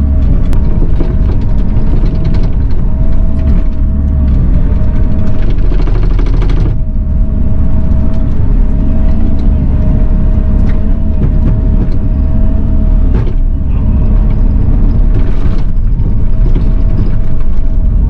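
Bobcat E42 mini excavator running and working, heard from inside its cab: a loud, steady engine rumble with a constant whine over it.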